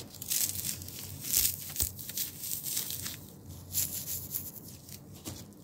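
Foam packing peanuts crunching and squeaking as a hand digs through a box full of them: a continuous irregular rustle with several louder crunches.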